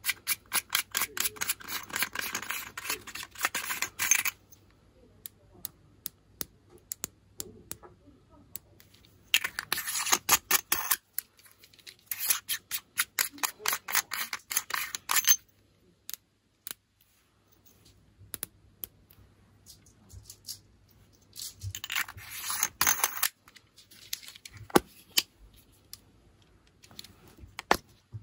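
Quick trains of small mechanical clicks, about seven a second, in four bursts of one to four seconds with scattered single clicks between, from the red dot sight being handled and adjusted.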